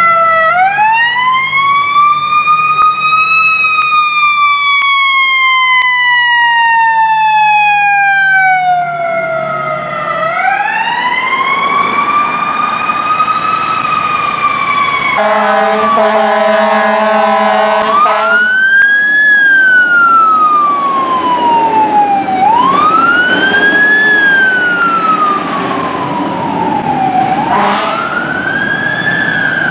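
Fire rescue truck sirens wailing. The first siren rises slowly and falls away over several seconds, twice. A horn blast of a few seconds follows, then a siren wails up and down several more times.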